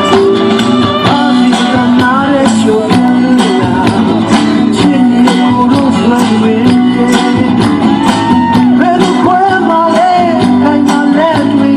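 Upbeat music with guitar, a busy percussion rhythm and a singing voice.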